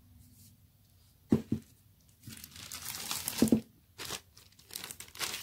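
Clear plastic packaging bag crinkling as it is handled, with two sharp knocks of hard parts set down on a table. The first knock, about a second in, is the loudest.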